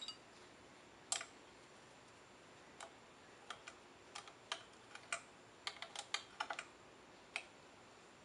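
Small metal parts and tools clicking and tapping as a Weber 40 DCOE carburettor is reassembled by hand: a dozen or so light, irregular clicks, bunched together about six seconds in.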